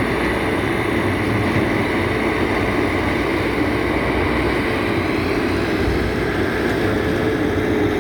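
Excavator engine running steadily: a constant drone with no revving or breaks.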